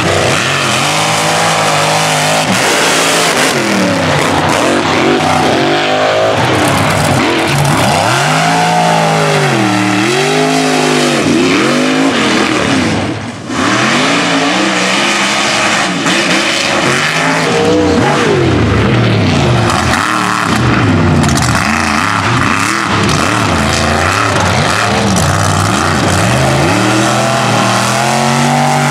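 Mega truck engines at full throttle, their pitch climbing and falling again and again as the driver works the throttle. There is a short drop in sound about halfway through, before a second truck's engine takes over.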